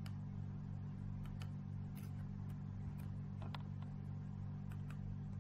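Low steady electrical hum with a few faint, irregular clicks: the background noise of the recording between sentences.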